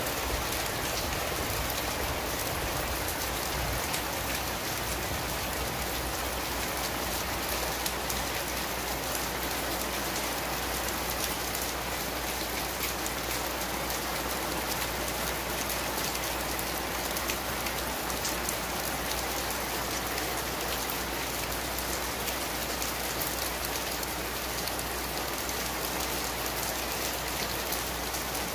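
Heavy downpour falling steadily: an even, unbroken wash of raindrops, with no thunder in this stretch.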